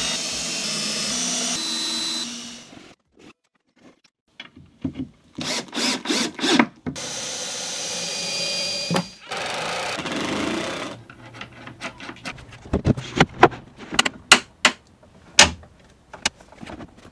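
A power tool running in several short spells, with sharp knocks and clatter in between that come thick over the last few seconds.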